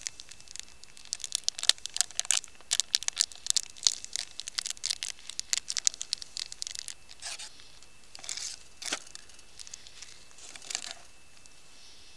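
Packaging being crinkled and torn: a dense run of sharp crackles for several seconds, then a few softer rustles.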